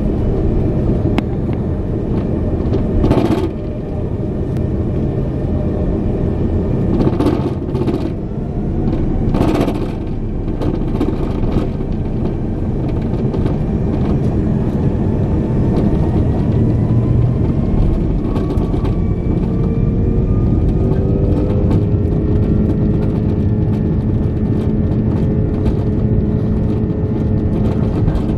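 Cabin noise inside an Airbus A330-300 taxiing: the steady rumble of its Rolls-Royce Trent 700 engines and the rolling gear, with a few knocks in the first ten seconds. Midway a faint engine whine rises slowly in pitch.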